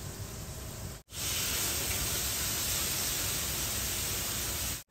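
Steaks sizzling and flaring on hot iron plates over gas burners during a flambé: a steady, loud hiss that comes in sharply about a second in and cuts off sharply near the end. Before it, a quieter steady kitchen hiss.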